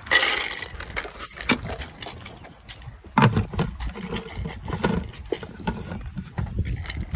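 Dry dog kibble rattling, then the plastic screw-on lid of a food bucket knocked into place about three seconds in and twisted shut with scraping and clicking.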